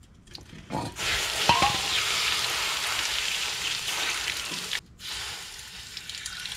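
Cold water poured onto a heated front wheel hub and rusted axle nut, sizzling and hissing loudly as it flashes to steam. This is the quench meant to break the nut loose. The sizzle starts about a second in and cuts off sharply near five seconds, then comes back more quietly with a second pour.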